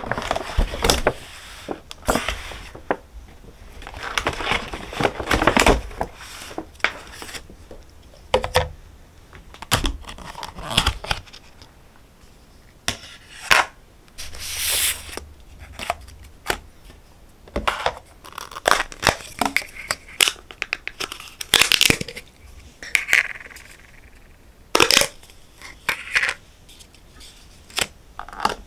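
Plastic takeout packaging being opened by hand: wrapping and sealing film torn and crinkled, and plastic lids pulled off takeout containers and set down on a table, in an uneven string of rips, rustles and clicks.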